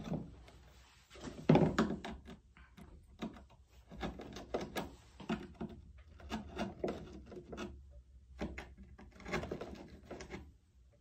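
Skate tool pressed and worked through the grip tape over a wooden skateboard deck's hardware holes, stretching them open: scattered scrapes, taps and small knocks, with a louder knock about one and a half seconds in.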